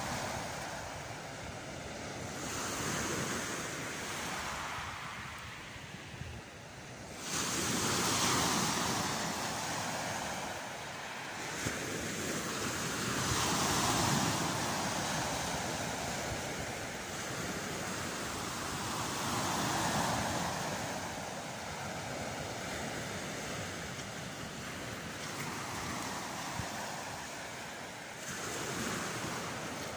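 Small waves breaking and washing up a sand and shingle beach, the surf swelling and fading about every six seconds.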